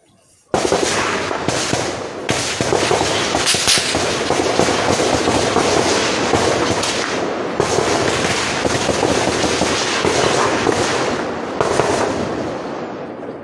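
Heavy, sustained gunfire: many shots overlapping into a continuous crackle, starting suddenly about half a second in and dying down near the end.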